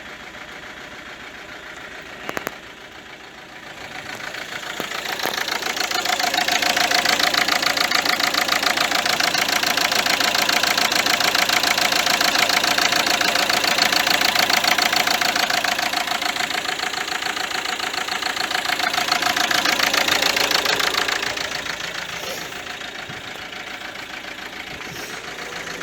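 Renault Mégane II diesel engine running with a clattering knock, just back in running order after a rebuild and new starter. It gets louder about four seconds in, stays there for about fifteen seconds, then drops back to a quieter idle.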